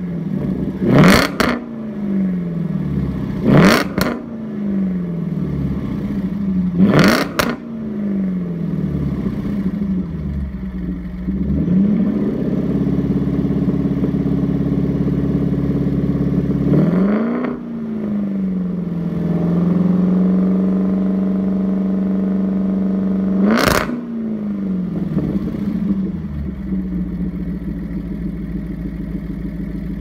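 2010 Jaguar XK's 5.0-litre V8 through a Spires Stage 2 stainless steel exhaust, revved while stationary. Three quick throttle blips in the first eight seconds each rise and fall back. The revs are then held up for a few seconds twice, with one more sharp blip about three-quarters of the way through, before it settles to a steady idle.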